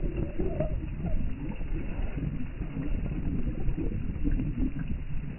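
Strong wind blowing across the microphone in uneven gusts, with waves washing on a fish pond.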